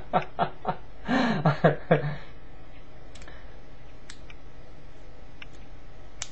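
A man's short chuckle, then a handful of faint, scattered clicks from the small multitool being handled, over a steady low background hum.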